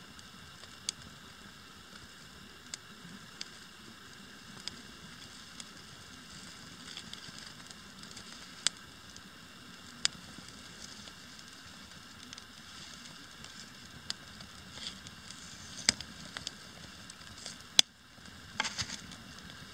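Wood campfire crackling: a faint steady hiss with scattered sharp pops and snaps at irregular intervals, the loudest snap near the end.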